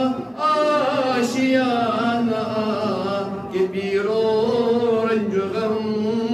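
A man's solo voice chanting a munajaat, a devotional supplication in verse, in long drawn-out wavering notes, with short breaths near the start and again a little past halfway.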